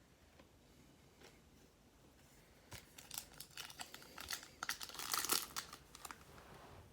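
Trading-card pack wrapper being torn open and crinkled: a run of crackling tears starting about three seconds in and lasting about three seconds.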